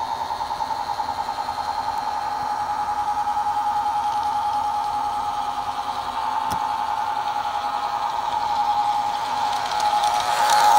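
Vintage 1950s electric toy train running on its track: a steady high motor whine with a fast flutter, getting louder near the end as the diesel locomotive comes close.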